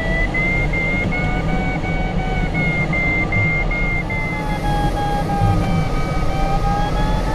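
Glider's audio variometer sounding a tone broken into short beeps, its pitch sagging slowly and then rising again, over a steady rush of airflow in the cockpit of a PIK 20 sailplane. The beeping tone signals the glider is climbing in lift.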